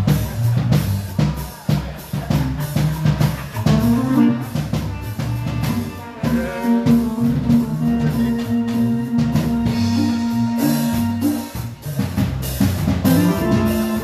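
Live band sound check on stage: drum kit with bass drum and rimshots keeps a steady beat under bass and keyboard, including one long held note in the middle. The playing breaks off abruptly at the end.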